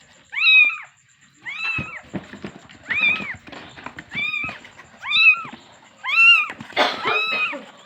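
A kitten meowing over and over, calling for its mother: short, high-pitched meows that rise and fall, about one a second, seven or so in a row.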